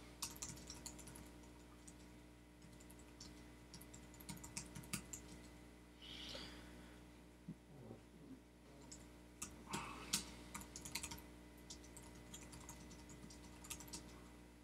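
Faint typing on a computer keyboard: irregular short runs of keystrokes with pauses between them.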